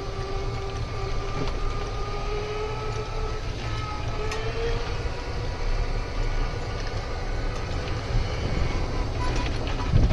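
Golf cart driving: a steady motor whine that drifts slightly in pitch, over a low rumble.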